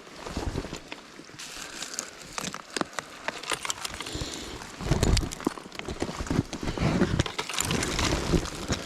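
Footsteps and hands scrambling over loose, crumbling rock: irregular crunches, scrapes and knocks, heaviest about five seconds in and again around seven to eight seconds.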